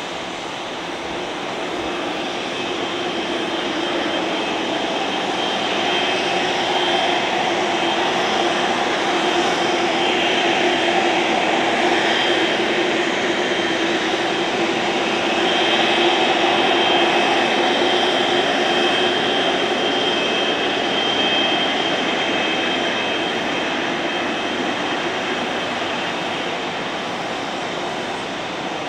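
Airliner engines as a plane passes: the sound swells over the first ten seconds or so, stays loudest with a steady whine through the middle, then slowly fades.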